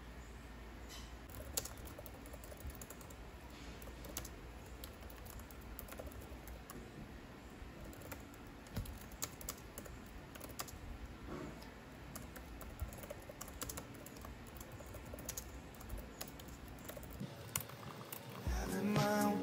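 Typing on an HP laptop keyboard: soft, irregular key clicks. Music comes in near the end.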